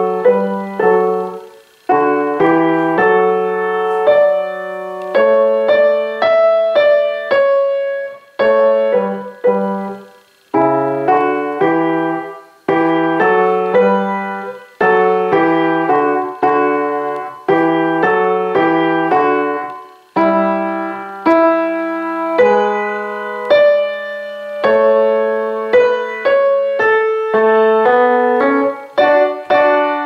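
Kawai grand piano playing a simple children's-song arrangement with both hands: a melody over lower accompanying notes, in short phrases separated by brief breaks.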